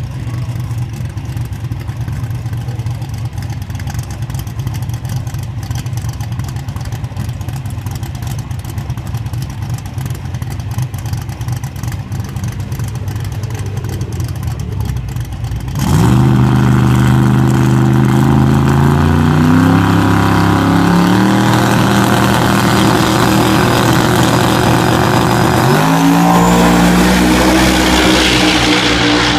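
Twin-turbo Mustang Cobra engine idling with a low steady drone, then about halfway through launching at full throttle. It accelerates hard, its pitch climbing and dropping back at each of several gear changes.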